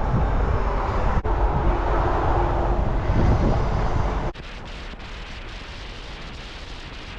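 Vehicle on the road: a steady rumble with wind noise on the microphone. The sound is cut in short edited clips, and about four seconds in it drops to a quieter, thinner road noise.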